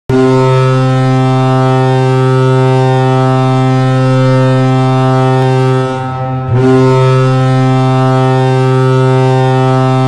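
Fayetteville Marksmen ice hockey goal horn blaring: a loud, steady, low multi-tone horn blast that dips briefly about six seconds in, then sounds again.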